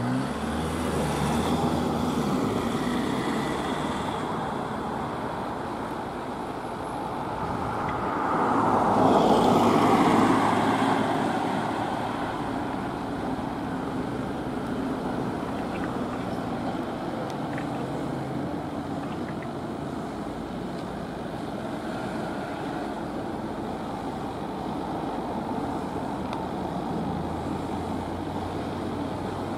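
Road traffic with fire engines driving past: a steady hum of engines and tyres, loudest about nine to ten seconds in as one vehicle passes close.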